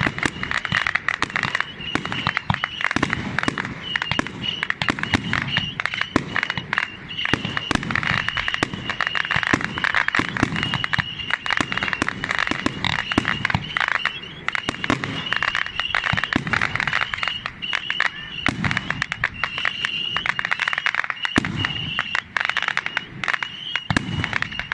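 Fireworks going off: a dense, continuous run of crackling and popping, with repeated deeper bangs that ring on.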